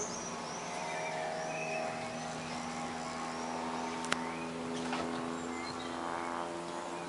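Small single-engine propeller plane droning overhead, a steady pitched hum with several overtones that sinks a little in pitch as it passes. Birds chirp near the start, and there is one sharp click about four seconds in.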